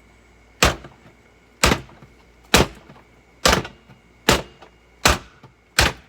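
Seven hard, sharp strikes on a solid object, evenly spaced about a second apart, like repeated blows from a hammer.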